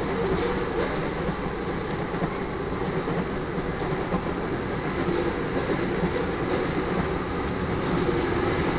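Railroad tank cars of a crude oil freight train rolling past, steel wheels on the rails making a steady rumble.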